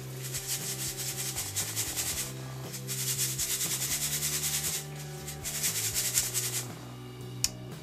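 Coarse whole-grain flour being sifted in a metal drum sieve shaken back and forth: a rasping hiss of grains sliding over the mesh, in three spells, stopping about a second before the end. A sharp click comes near the end.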